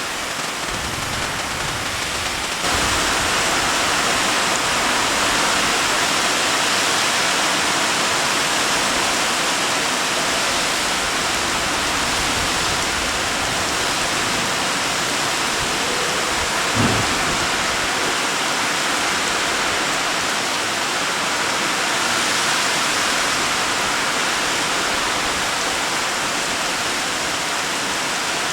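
Heavy rain pouring down, a steady hiss of rain that grows louder about three seconds in. A single short low thump comes about two-thirds of the way through.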